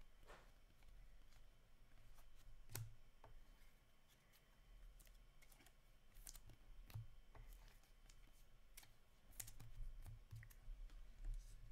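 Faint, irregular soft clicks and taps of 2022-23 Upper Deck Series 1 hockey cards being flicked through and handled by hand, over a faint low hum.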